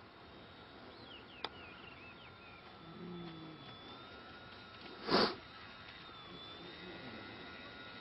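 Faint, steady whine of an RC seaplane's twin brushless electric motors as it lands and taxis on the water, the pitch dipping briefly a few times with the throttle. A few high chirps sound about a second in, and a short, loud rush of noise comes a little past halfway.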